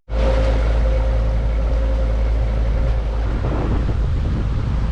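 Boat engine running steadily under way, with wind rumbling on the microphone.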